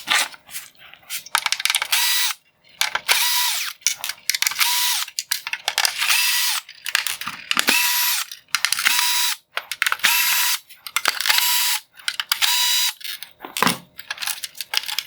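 Cordless power screwdriver running in a dozen or so short bursts, a motor whine that rises as each burst starts, as it backs out Phillips head screws one after another.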